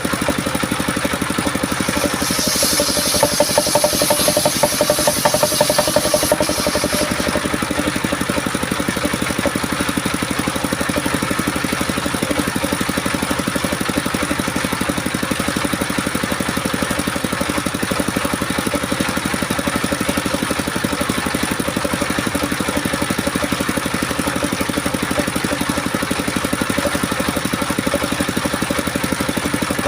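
Homemade circular saw running steadily, with a brief high-pitched rasp as the blade cuts through coconut wood about two to six seconds in; afterwards the machine runs on without cutting.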